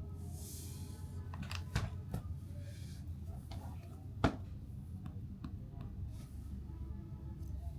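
Handling noises from a product box being unboxed: a few light clicks and taps, the sharpest about four seconds in, with faint rustling over a steady low hum.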